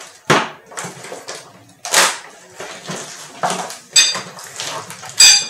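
Plastic packaging rustling and crinkling in short handfuls as it is pulled off flat-pack chair parts, with two sharp metallic clinks, about four seconds in and near the end, the second one the loudest.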